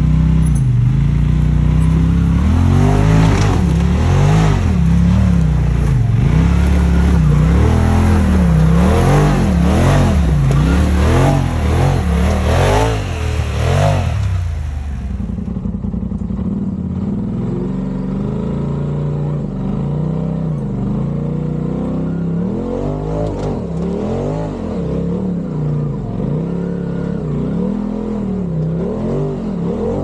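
Side-by-side UTV engine revving up and down again and again, about once a second, as it is driven over rough trail terrain. About halfway through the sound gets quieter and a high hiss drops out, while the revving carries on.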